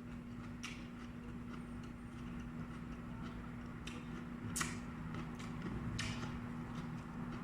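Crunching and chewing of raw lettuce and broccoli: irregular crisp cracks a second or so apart, over a steady low hum.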